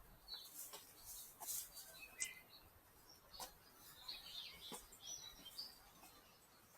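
Faint birds chirping, with scattered short high calls all through.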